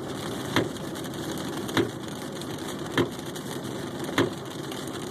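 Inside a moving car's cabin, windshield wipers give a short thump about every 1.2 seconds over the steady rumble of road and engine noise.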